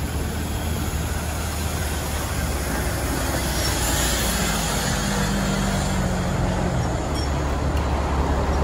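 Diesel engine of an intercity coach running slowly as the bus creeps past at close range, a steady low hum with broad road noise over it, growing a little louder as the rear of the bus goes by.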